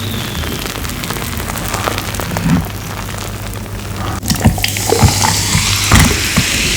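Carbonated cola fizzing and crackling in a glass, the hiss growing brighter a little past halfway, with a few soft knocks near the end.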